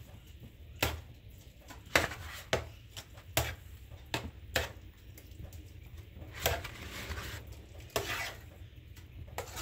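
Scattered sharp clicks and knocks of kitchen utensils being handled, with a short rustle about six and a half seconds in.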